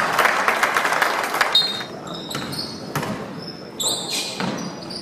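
Basketball game sounds echoing in a gym: a basketball bouncing on the hardwood court, short high sneaker squeaks and voices. The noise is loudest and densest in the first second and a half.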